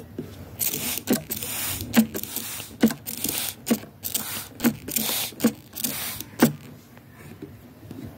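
Hand spray bottle squirting water onto loose soil: a sharp trigger click with a short hiss of spray about once a second, some eight times, stopping about six and a half seconds in.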